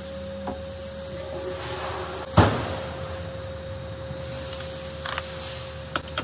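Steady background hum with a faint hiss, one sharp knock about two and a half seconds in, and a few light clicks near the end as a socket is fitted onto a cordless ratchet.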